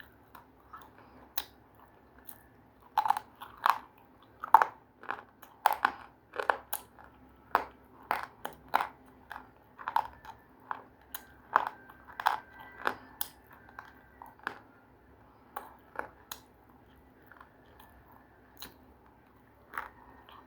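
A person biting and chewing something hard and crunchy close to the microphone: sharp, irregular crunches about one to two a second, loudest in the first half and growing fainter toward the end, over a faint steady hum.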